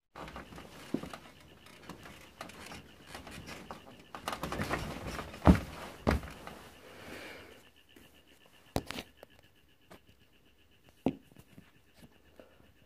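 Rustling and handling noise close to the microphone, with scattered knocks and thumps. The busiest stretch is in the middle, and the loudest knock comes about five and a half seconds in.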